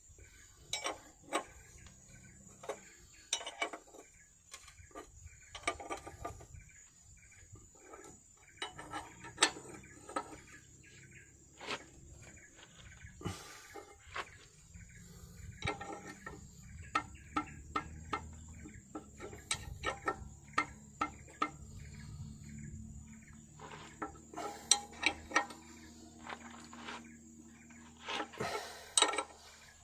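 Metal clinks and taps of a combination wrench on the centre bolts of a Nissan RE10 diesel engine's oil filter canisters as they are tightened, irregular and sharp, over a faint steady high-pitched whine.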